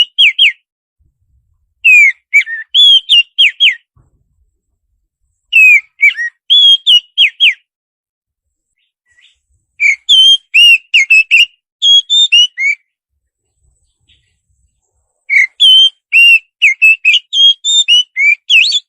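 Songbird singing runs of quick, clear whistled notes, many sliding down in pitch, with silent gaps of a second or two between runs; it is the kind of song used as a masteran recording to train caged birds.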